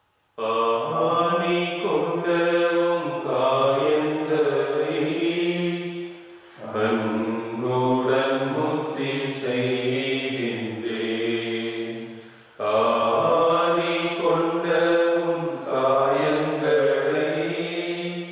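Slow devotional chant sung in three long phrases of about six seconds each, with short breaks between them.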